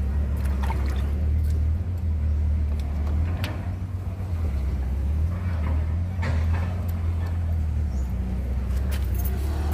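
A steady low mechanical hum throughout, with a few light clicks and clinks from handling the metal drum-brake shoes and backing plate.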